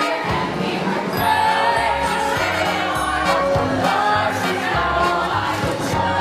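Musical-theatre ensemble singing a show tune in chorus over instrumental accompaniment with a steady bass line.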